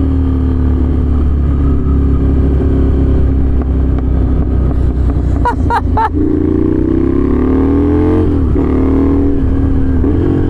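Ducati Scrambler V-twin through an aftermarket exhaust with its baffle out, heard from the saddle while riding. It holds a steady note for about five seconds, then rises twice under throttle and drops back after each rise. The exhaust is loud, a bit too loud without the baffle.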